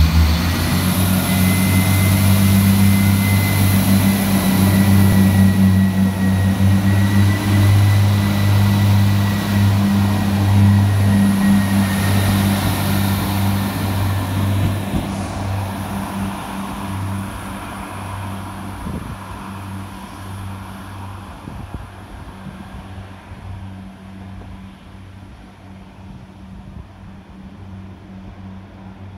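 Iarnród Éireann 22000 Class InterCity Railcar (ICR) moving off along the platform, its underfloor diesel engines giving a steady low drone that fades as the train draws away.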